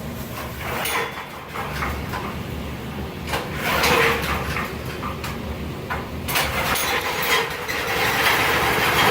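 An engine running with a steady low rumble, under irregular scraping and rustling work noises that swell louder about four seconds in and again near the end.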